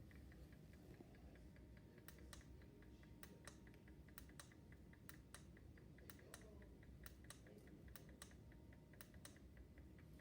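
Quiet, steady quick ticking from a pendulum wall clock, with a dozen or so irregular, louder sharp clicks over it.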